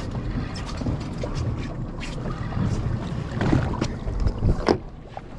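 Wind buffeting the microphone on an open boat at sea, with a scatter of short sharp clicks and knocks, the loudest coming between about three and a half and five seconds in.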